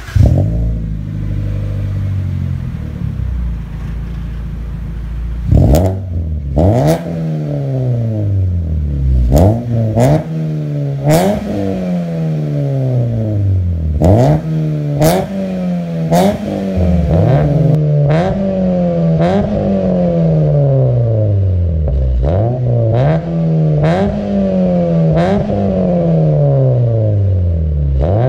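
Mitsubishi Lancer's four-cylinder engine breathing through a full aftermarket exhaust with dual exits: it idles for about five seconds, then is blipped about once a second, each rev jumping up sharply and falling back slowly, many blips opening with a sharp crack.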